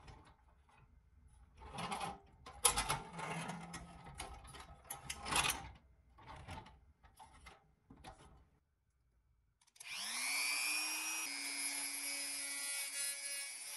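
Pressed-steel toy truck rolled back and forth by hand on a wooden surface, its worn wheels rattling and scraping in short bursts. About ten seconds in, a rotary tool with a small wire brush spins up with a rising whine and runs steadily against the rusty wheel hub.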